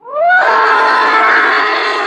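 Triceratops creature sound effect: a loud animal-like call that starts suddenly, rises in pitch over the first half second, then holds steady.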